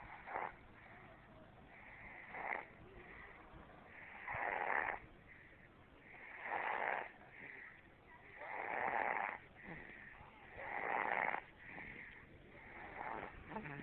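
Snoring: a sleeper's noisy breaths come in a steady rhythm about every two seconds, with softer breaths between them. The loudest snores fall in the middle stretch.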